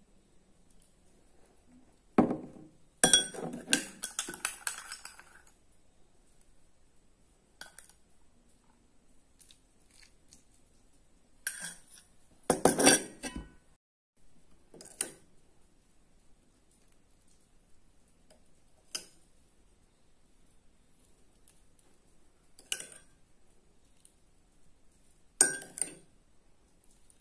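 Metal spoon clinking against a glass and a steel plate: a run of clinks a couple of seconds in, another around the middle, then single clinks every few seconds.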